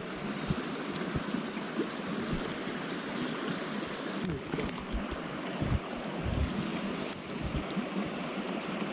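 Shallow stream rushing steadily over riffles, with gusts of wind buffeting the microphone.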